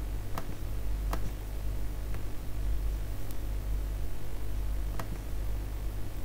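Occasional single sharp clicks from working at a computer, about five spread irregularly, over a steady low hum.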